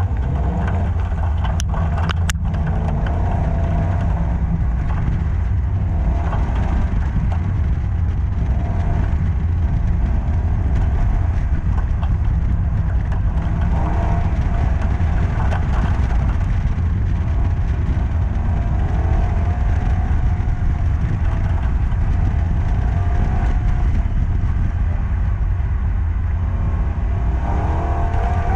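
Car at speed on an autocross course, heard from a camera mounted low beside a wheel: a heavy, steady wind and road rumble over an engine note that rises and falls as the car accelerates and slows between cones. A couple of sharp ticks about two seconds in.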